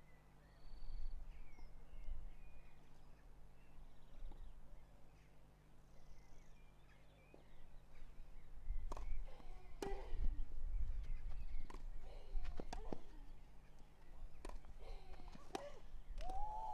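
Tennis ball struck with rackets in a rally: a series of sharp hits about a second apart, starting about nine seconds in. Birds chirp faintly in the first few seconds.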